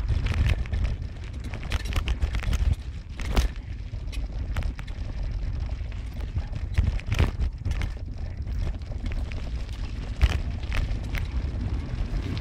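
Car on the move: a steady low rumble of road and wind noise, broken by scattered sharp knocks and rattles, the loudest about 3.5 s and 7 s in.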